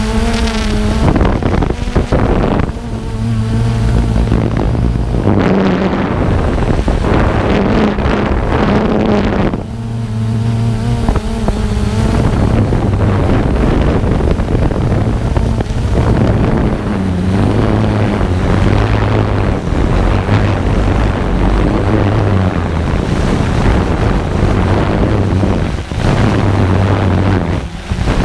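Camera drone's propellers and motors buzzing loudly close to the microphone, their pitch stepping up and down as the motors adjust, with wind noise over it.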